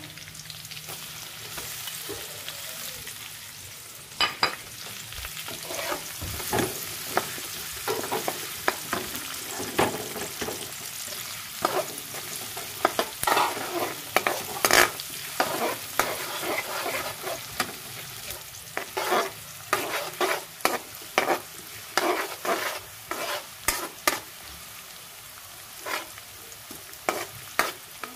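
Chopped garlic and onion sizzling in hot oil in a wok, with a metal spoon scraping and knocking against the pan as it is stirred, again and again from about four seconds in.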